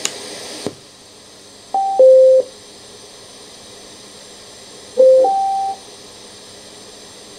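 Bluetooth audio receiver module's status tones through the boombox speakers: a click, and the music cuts off under a second in. A loud falling two-note beep follows about two seconds in, then a rising two-note beep about five seconds in, as the receiver is switched off and on without a working connection.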